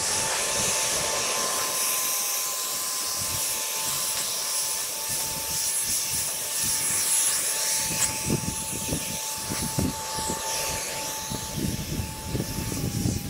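Steady high whine of an electric motor running at constant speed, with gusty rumble of wind on the microphone that grows stronger in the second half.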